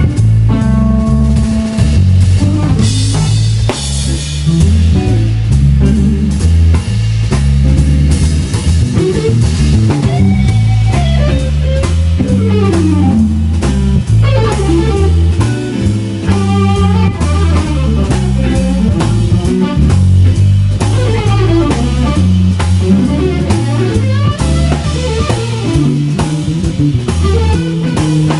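Live instrumental band playing: electric guitar lead over electric bass and a drum kit, with the guitar's notes sliding and bending in long glides through the middle and again later on.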